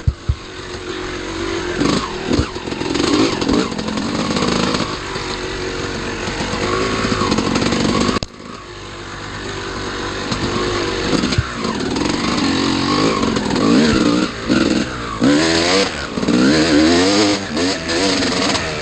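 Off-road dirt bike engine revving hard under the rider, its pitch climbing and falling again and again with throttle and gear changes. The throttle is chopped sharply about eight seconds in, then picks up again.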